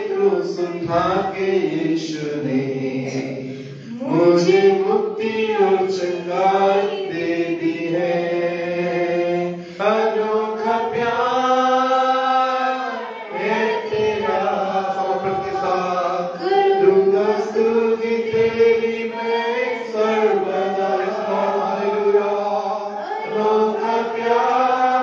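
A man singing a worship song solo into a handheld microphone, in long drawn-out notes that rise and fall, with short breaks between phrases.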